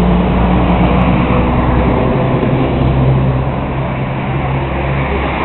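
Motor vehicle engine running loud and steady with a low hum and road noise; its pitch drops about two seconds in.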